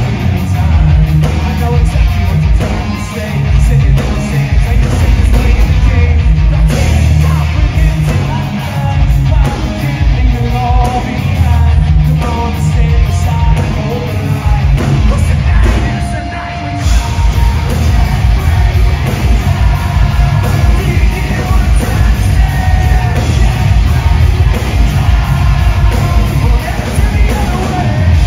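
Live hard rock band playing loudly: distorted electric guitars, pounding drums and heavy bass under shouted, half-sung vocals.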